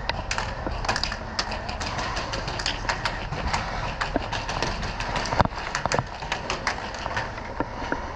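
Airsoft guns firing: a rapid, irregular clatter of sharp snapping shots, several a second, over a steady noisy background, with one louder snap about five seconds in.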